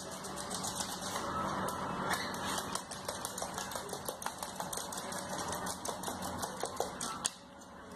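A rapid, irregular run of light clicks and taps over a faint low hum, thinning out near the end.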